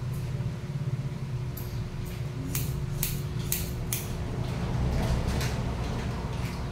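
Hairdressing scissors snipping through wet hair: a quick run of sharp snips through the middle, then a few more scattered near the end, over a steady low hum.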